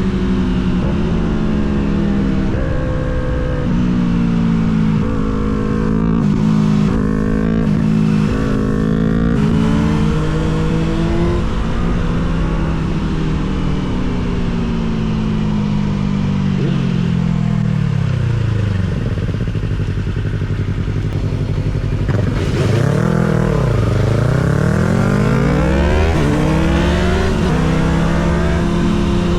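Suzuki GSX-R750 SRAD inline-four through a Yoshimura R77 exhaust, under way: it holds a steady engine speed, then the revs fall away slowly as it slows. About two-thirds through the pitch drops sharply and quickly climbs back, and it keeps rising near the end as the bike accelerates again.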